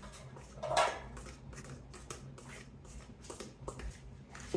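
Fork beating wet cake batter in a metal mixing bowl: quick, even scraping ticks of the tines against the bowl, about four a second, with one louder scrape about a second in.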